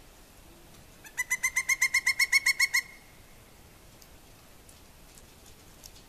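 Female pileated woodpecker giving her series call: a rapid, even run of about fifteen loud "wuk" notes, starting about a second in and lasting under two seconds. The series call is likely a territorial signal.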